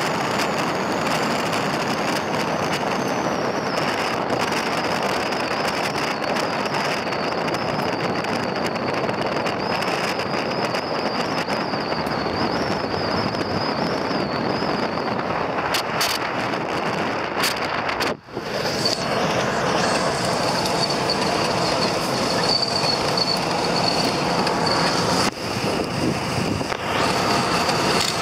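Steady road noise inside a moving car: tyres, engine and wind running together without a break, cut by one very short drop about two-thirds of the way through.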